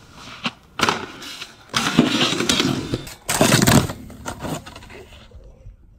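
Snowboard on a metal stair handrail: a sharp hit about a second in as the board meets the rail, then scraping as it slides, the loudest stretch a little past the middle, and a few smaller knocks before the sound cuts off.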